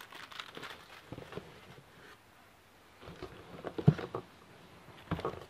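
Plastic-wrapped firework packs being handled in a cardboard box: scattered light rustles and taps, with a sharper knock about four seconds in and a few more near the end.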